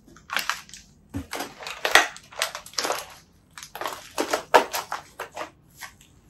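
Footsteps crunching and scraping over broken glass and rubble, an irregular run of sharp crunches.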